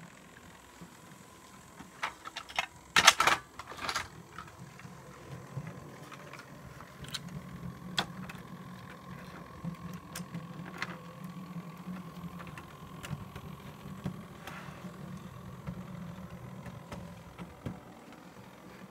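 Model train running on its track: the locomotive's small electric motor hums steadily with a faint whine, with scattered clicks of wheels over the rail joints. A few loud clacks come about three seconds in, before the hum sets in.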